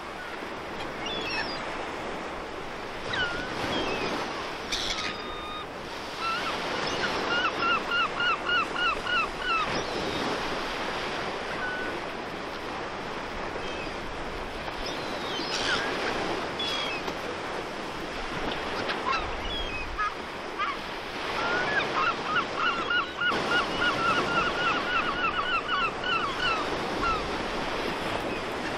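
Sea surf washing steadily against the sea wall, with gulls giving two long runs of quick repeated cries, about four a second, one early in the middle and a longer one near the end.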